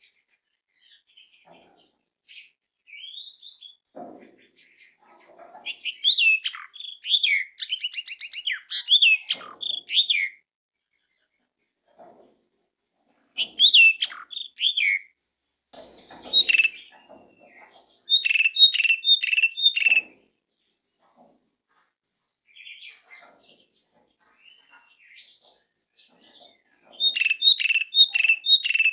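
Asian pied starling (jalak suren) singing in bursts of varied, quickly changing whistled notes separated by pauses. Twice, about two-thirds of the way in and again near the end, it gives a quick run of five or six evenly repeated notes.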